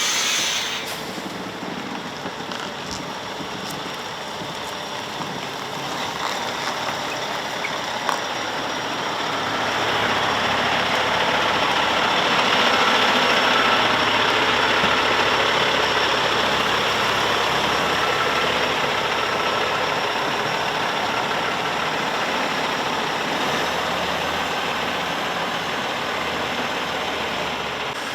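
Heavy diesel engine running steadily, growing louder about ten seconds in and staying up, with a short hiss right at the start.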